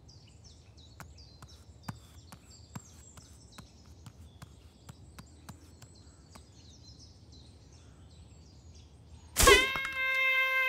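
Forest ambience of quick repeated bird chirps and scattered soft clicks for most of the time. About nine seconds in, a sudden loud hit brings in orchestral music with a held brass note.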